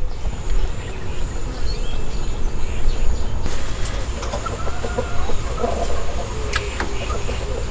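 Chickens clucking over a steady low rumble and a thin, steady high-pitched tone.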